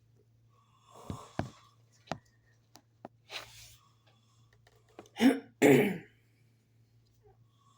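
A person's voice making two loud, short, sudden bursts, a little over five seconds in, after a few light clicks and a brief breathy hiss.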